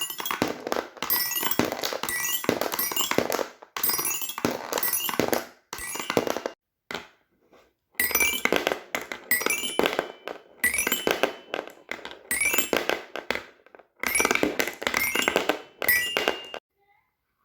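Fidget toys being handled: a dense run of hard clicks, clinks and thunks with short ringing pings, in bursts of a second or two that stop abruptly at cuts.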